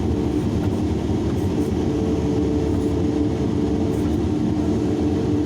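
Large hydraulic excavator's diesel engine running steadily while loading, a constant rumble with a steady droning tone, and a second, higher tone joining about a second and a half in.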